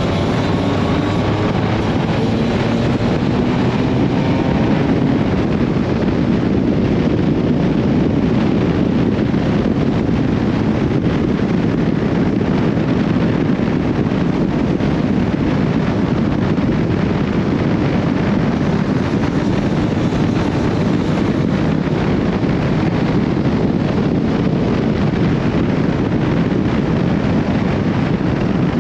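Steady wind rush over the microphone with the Honda CB1300SB's inline-four engine running underneath, the motorcycle riding along at an even speed.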